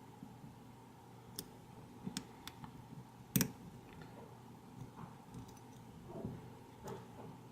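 Lock pick and tension wrench working the serrated pin stacks of an ACE A527 padlock's American-style core: faint, scattered small clicks. The loudest is a sharp click about three and a half seconds in.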